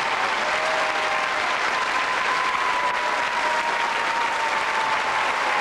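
Studio audience applauding steadily as a song ends.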